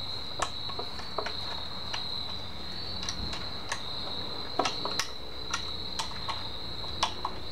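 Crickets chirring in a steady high trill, with scattered sharp metal clicks and taps from a small hand tool working the bolts on the compressor's head.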